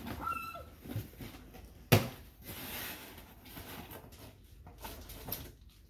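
Cardboard shipping box being opened and handled by hand: flaps pulled open and pushed about, with a sharp thump about two seconds in and scattered rustling and knocks as the contents are rummaged.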